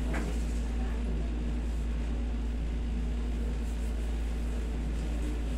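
Steady low hum and even hiss of a room air conditioner running.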